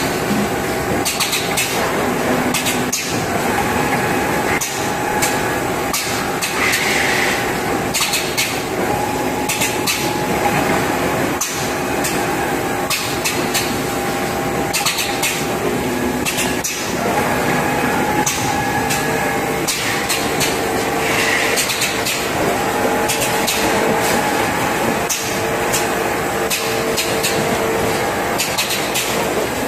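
Automatic multi-nozzle liquid filling machine running while filling laundry-detergent jugs: a steady mechanical hum under frequent irregular clicks and clacks from the nozzle mechanism, with a short hiss twice.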